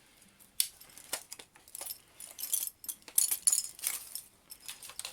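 Irregular metallic clicks and rattles from a CYMA M4A1 airsoft electric rifle being handled.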